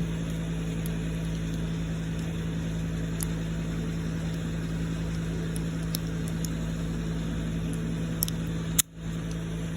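A steady low mechanical hum, with a few faint light clicks. The hum cuts out for an instant near the end.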